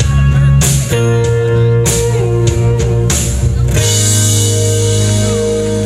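Live country-rock band playing the song's instrumental ending: electric guitar with bent notes over drums hitting about once a second, then a final chord held and ringing out about four seconds in.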